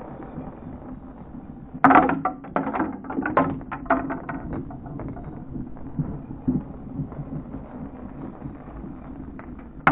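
Small LEGO bricks dropping onto hard black sheets, clattering in irregular clicks and knocks. The clattering starts sharply about two seconds in, loudest at first, over a steady low hum.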